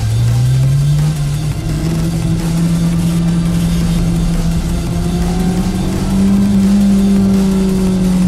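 Honda S2000's four-cylinder engine running hard under load, its pitch climbing in the first second, holding steady, then rising again about six seconds in.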